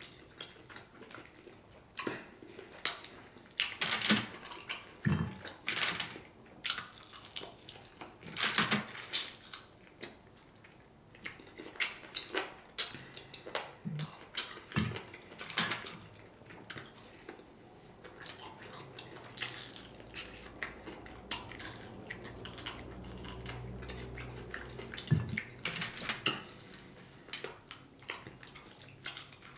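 A person eating crispy fried chicken wings: irregular crunching and chewing, with bites of crackly fried skin.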